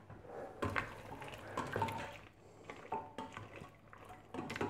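Penne and broccoli being stirred in a stainless steel pot with a little simmering broth: soft wet stirring with scattered light clinks of metal against the pot.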